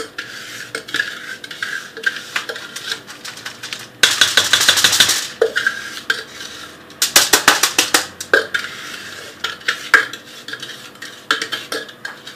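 A utensil scraping and tapping buttered Oreo crumbs out of a glass bowl onto a foil-lined pan. Scattered clinks and scrapes run throughout, with two spells of rapid scraping strokes, about four and seven seconds in.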